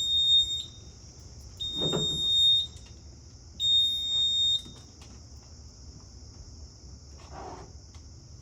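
Fire alarm sounder giving a high, piercing tone about a second on and a second off, three times, then falling silent about four and a half seconds in.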